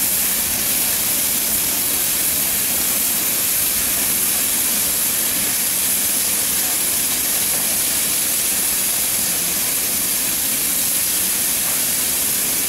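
Rebuilt Southern Railway Merchant Navy class 4-6-2 steam locomotive 35006 standing with steam hissing steadily: an even, high hiss with no chuffs or beats.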